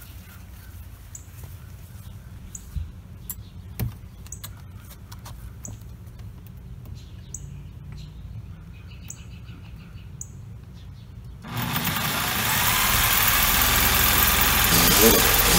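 A bird repeats a short high chirp about every second and a half over low background sound with a few light knocks. About eleven and a half seconds in, a corded reciprocating saw starts up loud and runs, its blade held against the shed door's lock to cut through it.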